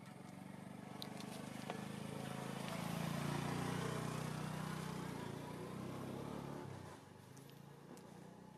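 A motor vehicle driving past, its engine growing louder for about three seconds and then fading away over the next three.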